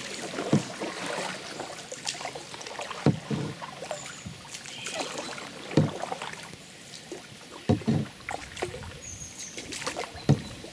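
Kayak paddling: paddle strokes splash in the water every two to three seconds over a steady hiss of moving water.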